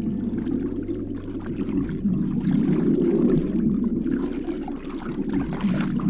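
Muffled underwater bubbling and churning of water around a swimming walrus, a continuous low gurgling.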